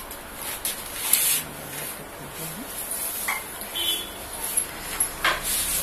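Hairdressing scissors snipping through hair, along with the rustle of hair being lifted and combed: a few short, sharp high snips, the loudest about a second in and again near the end.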